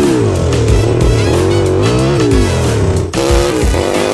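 Background music with a steady beat over the engine of a 4x4 Power Wheels quad revving up and down as it is driven hard. The sound changes abruptly about three seconds in.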